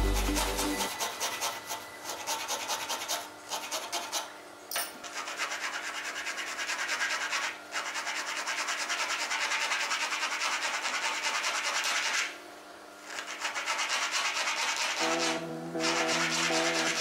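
Small needle file rasping back and forth in a notch cut into plywood, a rapid, continuous scratching broken by a few short pauses and a longer one about two-thirds through. Background music is heard at the very start and again near the end.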